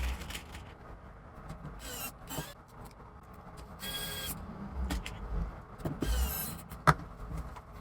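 Several short whirs of a small electric motor, a few gliding up or down in pitch, mixed with handling clicks and one sharp click near the end.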